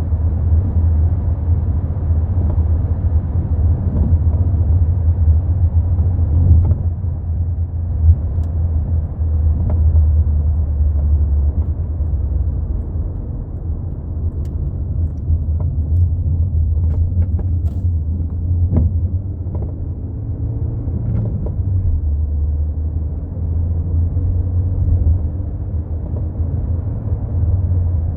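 Low, steady road rumble of a Mk4 Volkswagen Golf on the move, broken by short sharp knocks every few seconds and several close together in the middle: the sound of a bad rear shock absorber.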